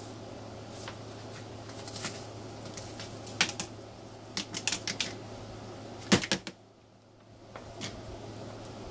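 Irregular light clicks and knocks as old cardboard toilet paper rolls are handled and tossed aside while a roach bin is cleaned out, with one louder knock about six seconds in. A steady low hum runs underneath.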